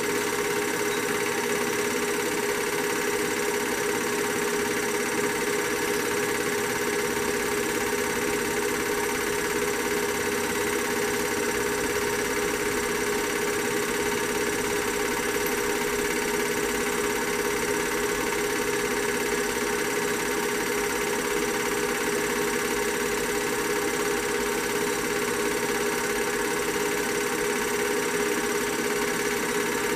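Film projector running: a steady mechanical whirr with an even hum, unchanging throughout.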